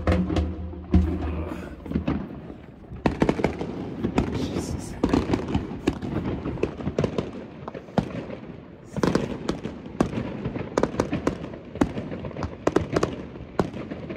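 Daytime fireworks going off in quick, irregular salvos of sharp bangs and crackles, coming thick and fast from about three seconds in.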